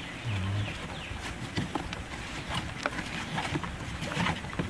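Nylon tie-down strap being handled and knotted around a kayak on a roof rack: rustling webbing with scattered light clicks and taps.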